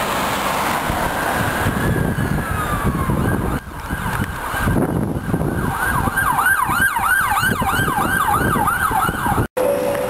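An emergency vehicle's siren over street traffic and wind noise: slow wailing sweeps in the first few seconds, then a fast yelp of about three rises a second from about six seconds in, cut off abruptly near the end.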